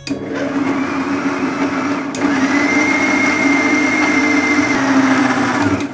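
Electric mixer grinder running with a stainless steel jar, grinding tomatoes, coconut, cumin and water to a fine paste. It starts abruptly, and after a click about two seconds in it runs louder with a high whine. It stops just before the end.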